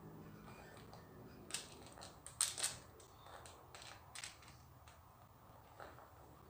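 Small plastic LEGO pieces clicking as 1x1 cheese slopes are handled and pressed onto a LEGO baseplate: an irregular scatter of short, sharp clicks, the loudest a close pair about two and a half seconds in.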